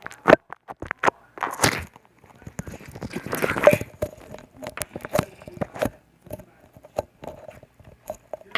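Hands squishing and working slime, making a string of short sticky clicks and pops with a couple of longer squelching swells.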